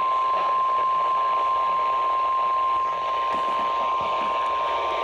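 NOAA Weather Radio 1050 Hz warning alarm tone: one steady, unbroken tone over radio hiss, the attention signal that comes before a weather warning message.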